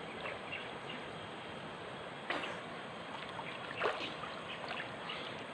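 Steady rush of flowing river water, with a couple of brief knocks about two and four seconds in.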